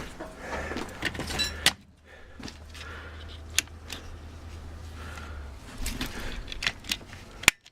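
Old electric pillar drill's motor running after being plugged in, a steady low hum that stops near the end, with sharp clicks and knocks of the machine being handled.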